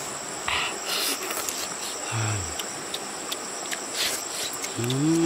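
Steady high-pitched drone of crickets, with short wet slurping and chewing noises from people eating fish off the bone. A brief low 'mm' about two seconds in, and near the end a louder, longer hummed 'mmm' that rises and falls in pitch.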